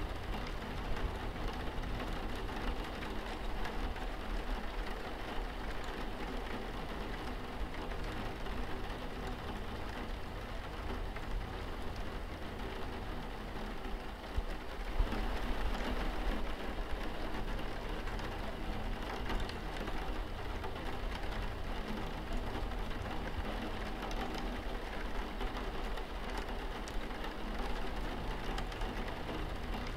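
Steady rain falling on a window pane, with a low steady hum beneath it.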